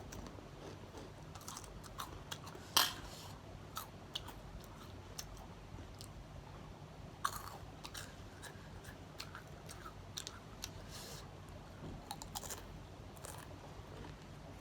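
Close-up chewing and crunching of crunchy spicy snacks, with irregular sharp crunches; the loudest come about three and seven seconds in, and a quick cluster near the end.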